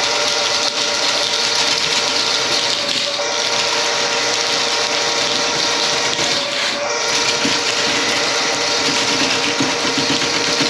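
Motorized drain-cleaning machine running steadily with a constant motor tone and a dense hiss, working on a kitchen drain line clogged with grease.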